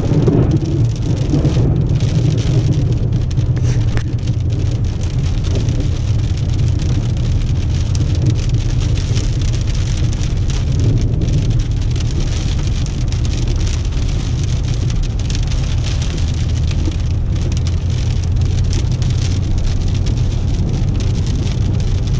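Rain on a car's windshield and roof heard from inside the cabin of a moving car, a steady hiss over a constant low road and engine drone.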